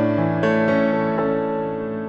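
Background music of a piano-type keyboard playing slow chords, each struck and left to ring and fade.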